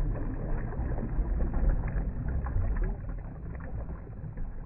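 Muffled underwater ambience: a low rumble and hiss with scattered faint clicks, getting quieter a little past halfway.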